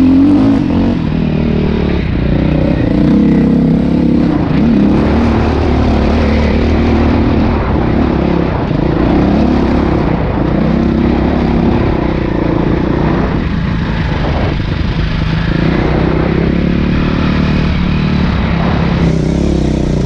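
Dirt bike engine running under changing throttle, its pitch rising and falling.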